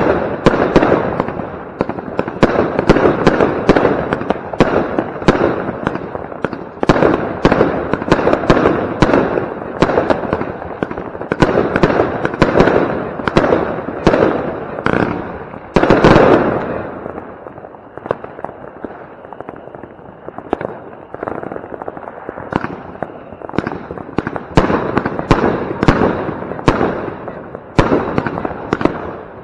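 A 36-shot, 25 mm consumer firework battery (Funke Kamuro-Weißblinker) firing in rapid succession, shot after shot of launches and bursts, until it stops a little past halfway. After a few seconds of only faint background bangs, a second battery (Funke Scala 25C) starts firing its rapid shots about three-quarters of the way in.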